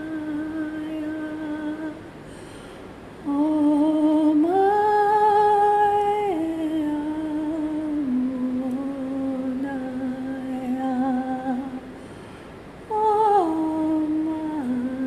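A woman humming a slow, wordless melody of long held notes that step up and down in pitch, with two short pauses.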